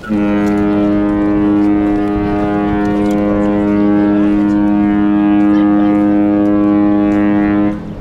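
MSC Meraviglia's ship horn sounding one long steady blast of about seven and a half seconds, starting and stopping abruptly.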